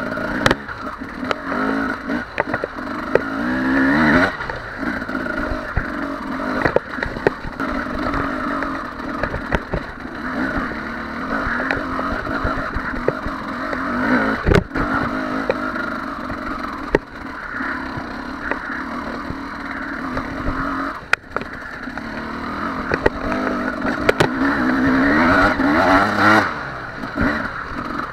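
Two-stroke enduro motorcycle engine revving up and down under load on a steep, rocky climb, with sharp knocks from the bike hitting rocks here and there.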